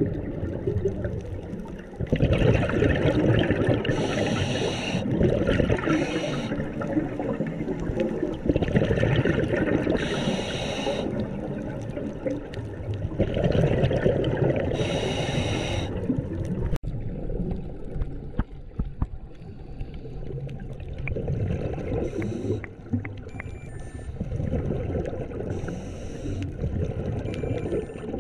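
Scuba diver breathing underwater through a regulator, heard through the camera's underwater housing: short hissing breaths every few seconds, with gurgling, rumbling bubbles between them.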